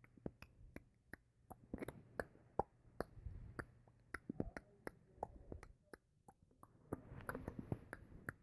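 An irregular series of sharp, close clicks, roughly two or three a second, with a soft rustling hiss joining them near the end.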